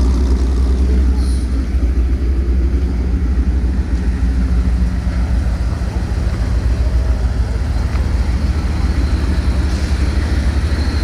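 Car engine running steadily at an even low speed, with no revving.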